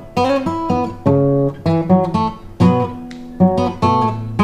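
Guitar music: strummed chords, each struck sharply, changing about every half second.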